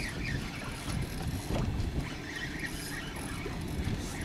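Wind rumbling on the microphone over the steady noise of a boat under way on open water.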